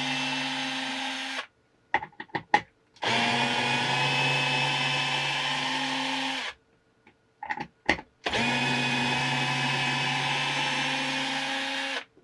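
NoCry cordless electric screwdriver running in reverse, backing wood screws out of timber: three runs of steady motor whine, with short stops and a few sharp clicks between them as each screw comes free and the bit is set on the next.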